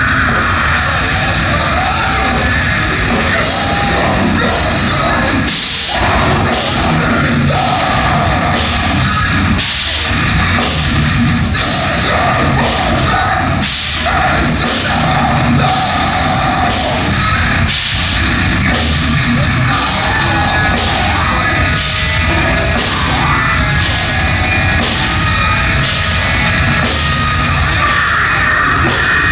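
Heavy metal band playing live, loud and dense, with regular heavy drum strikes and yelled vocals.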